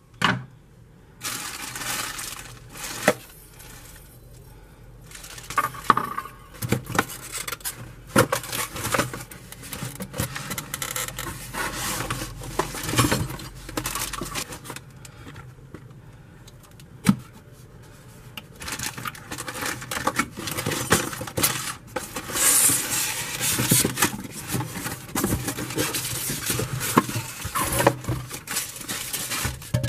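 Unpacking a cardboard box by hand: scattered knocks and clicks as the cardboard flaps and packing are handled, then denser rustling and scraping over the last ten seconds as the hand mixer is worked out of its polystyrene foam insert.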